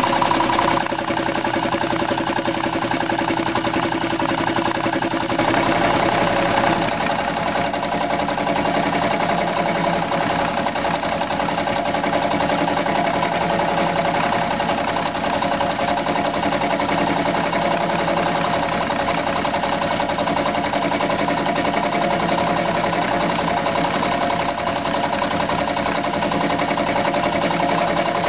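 Antique Curtis belt-driven air compressor running steadily, an electric motor driving its piston pump with a fast, even pulse. Its tone shifts slightly about six seconds in.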